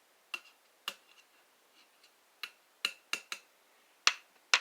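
Steel screwdrivers clinking and tapping as they are handled and touched against small metal things. It comes as about eight short, sharp metallic clicks at uneven intervals, the loudest two near the end.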